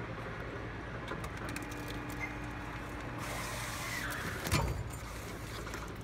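Super Stripper 170 cable stripping machine running with a steady hum while a thick copper cable is fed through it and its jacket slit, with scattered clicks and one louder knock about four and a half seconds in.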